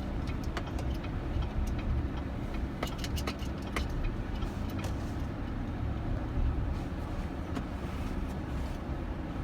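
Cabin noise of a 2018 GMC Sierra pickup driving at low speed: a steady low engine and road rumble, with scattered light clicks and rattles at irregular moments.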